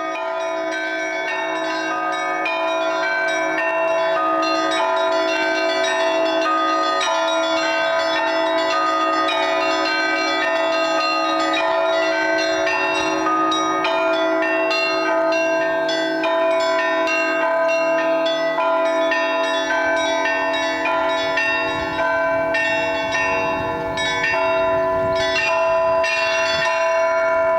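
Russian Orthodox church bells rung in a festive Easter peal: small bells struck in quick succession over the sustained ringing of larger bells. Deeper strokes join about two-thirds of the way through.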